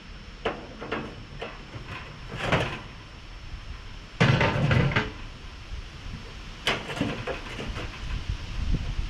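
Metal parts clanking and rattling as they are handled inside an open grill, in separate knocks. The loudest is a longer clattering scrape about four seconds in.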